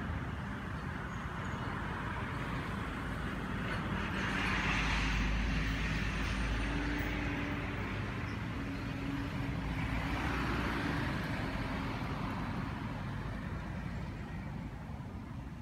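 Background road traffic: a steady rumble and hiss that swells twice, about four and ten seconds in, as vehicles pass.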